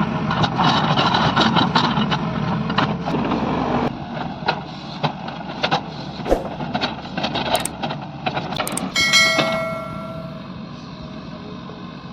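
Walking excavator working: machine noise with many clanks and knocks that drops in level about four seconds in, and a brief ringing metallic squeal about nine seconds in.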